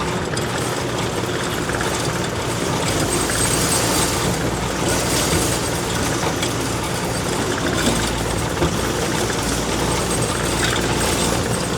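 Diesel engine of a loader running steadily, heard from the operator's seat as the machine is driven between loads.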